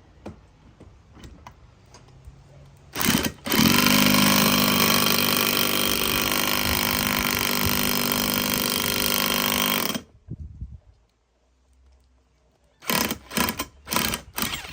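A power tool runs hard for about seven seconds, driving a new ball joint into a van's steering spindle, then cuts off abruptly. Several short bursts from the tool follow near the end.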